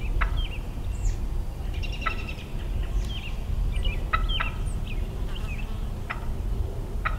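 Wild turkey gobbling about five times, each call short, with small songbirds chirping between them over a steady low rumble.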